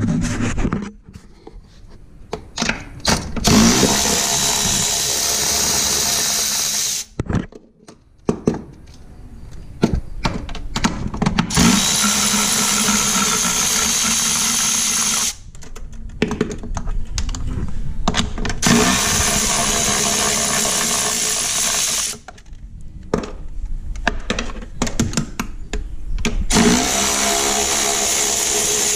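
Handheld power tool running in four steady bursts of about three to four seconds each, each one stopping abruptly, with knocks and tool clatter between the bursts.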